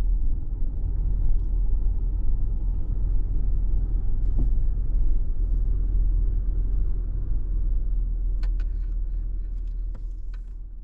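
Vehicle driving, a steady low rumble of engine and tyres, with a few sharp clicks or rattles near the end.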